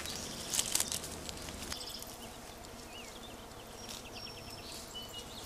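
Outdoor countryside ambience: insects with a few short bird chirps and whistles, and a brief rustle of brush about half a second in.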